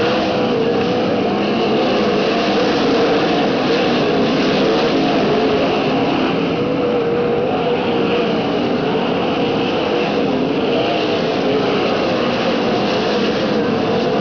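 Several winged sprint cars' V8 engines running together on a dirt oval, steady and loud, the engine notes wavering up and down as the cars circle the track.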